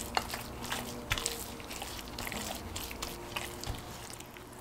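Soft, irregular wet squelches and slaps of a gloved hand rubbing an oily marinade into a raw spatchcocked chicken in a ceramic dish.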